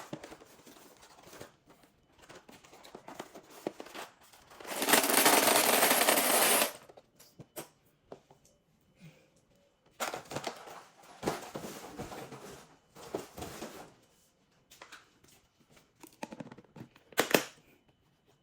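Hands unpacking and arranging kitchen organizers and packaging: scattered sharp clicks, knocks and rustles of plastic, with a loud rushing noise lasting about two seconds around five seconds in.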